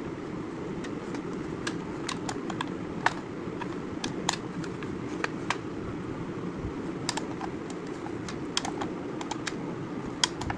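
Irregular sharp plastic clicks and taps as a hard plastic clamshell sunglasses holder is handled, opened and closed, over a steady low background hum.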